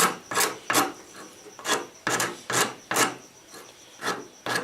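Wood file rasping across a hard wooden screwdriver handle in repeated short strokes, about two a second, with brief pauses between runs.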